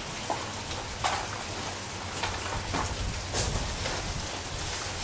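Cobweb duster's bristles brushing and tapping against lap siding, a scatter of light taps and scrapes over a faint steady low hum.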